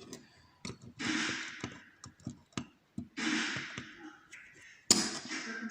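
Small metal clicks and taps of a pick or tool working the circlip off the back of a Euro cylinder lock. Two longer hissing sounds come about a second in and again about three seconds in, and one sharp loud click comes near the end.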